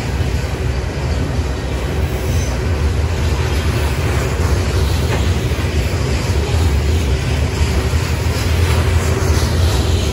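Freight cars of a rock train, open-top hopper cars, rolling past on steel wheels: a steady deep rumble with the rattle and hiss of wheels on rail.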